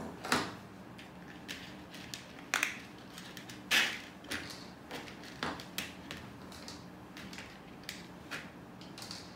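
Small plastic Lego pieces being handled and picked out of a tray: an irregular string of sharp clicks and short rattles, the loudest about a third of a second in, about two and a half seconds in, and near four seconds.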